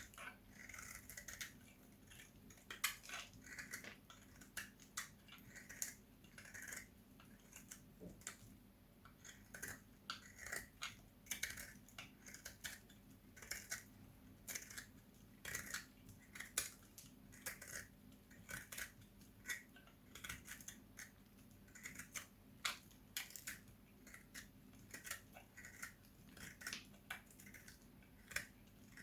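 A blade cutting through dry, hard soap in short crisp strokes, about one cut a second.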